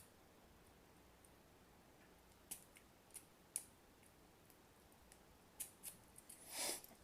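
Lock pick and tension wrench working inside a dimple lock's curved keyway: about five faint, sharp metal clicks spread over several seconds, then a short rush of noise near the end.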